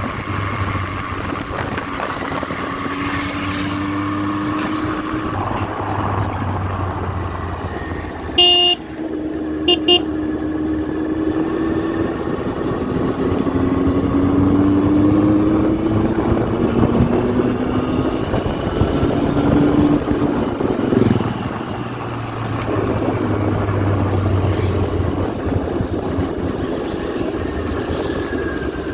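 Benelli TNT 600i's 600 cc inline-four engine running under way on the road, its pitch climbing and dropping back several times as the bike pulls. A vehicle horn toots briefly twice, about eight and a half and ten seconds in.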